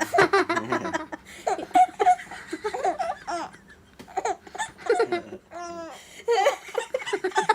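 Laughter in short, choppy bouts, a baby's laughter among it.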